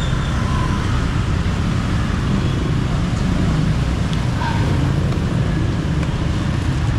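Steady street traffic noise: a continuous low rumble of passing vehicles.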